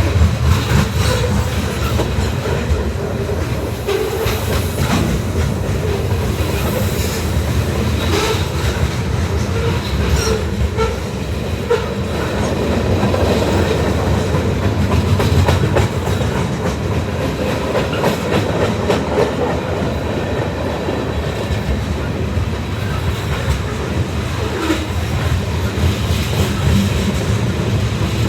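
A train passing close by on the tracks: steady noise of the wheels on the rails, with many short sharp clicks as the cars roll over.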